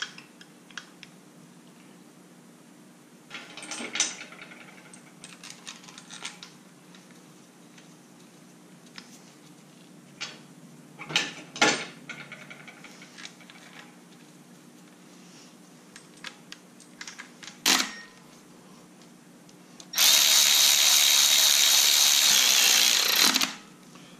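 Metal parts clinking as rocker arms are set onto an LS engine's cylinder head. Near the end comes a steady high whir of a cordless electric ratchet, running for about three and a half seconds as it drives a rocker arm bolt down.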